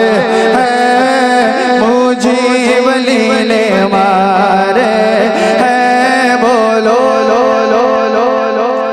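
Musical interlude of a devotional manqabat between sung verses: an ornamented, wavering melody over a steady low drone.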